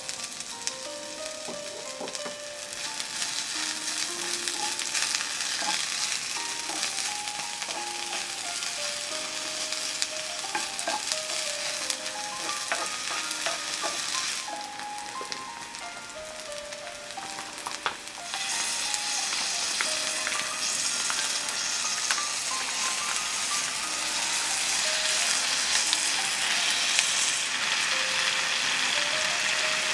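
Sliced green onion sizzling in oil in a cast iron skillet, stirred with a wooden spatula. A little past halfway the sizzling gets louder as the sauced spicy chicken feet go into the pan. A simple background melody plays throughout.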